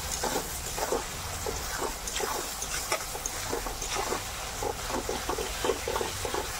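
Steel spoon scraping and knocking against a metal kadai in irregular strokes, several a second, as onion-tomato masala is stirred while it fries in mustard oil.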